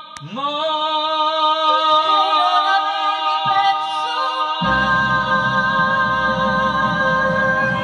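A woman and a man singing an Italian ballad into microphones, holding long notes that step up once. A fuller instrumental backing swells in about halfway through.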